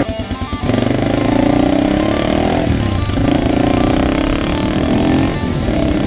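2006 Yamaha XT 225's single-cylinder four-stroke engine pulling away under throttle, its pitch rising, then dropping at a gear change about three seconds in and again near the end. Background music plays over it.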